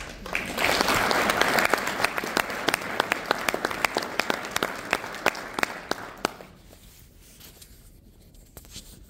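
Audience applauding, with one clapper close to the microphone standing out in sharp, regular claps; the applause thins out and dies away about six seconds in.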